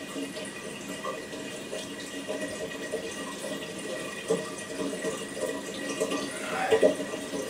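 Water splashing and trickling in an aquarium as hands move a driftwood root under the surface, pressing it onto a rubber suction cup, with a few soft knocks.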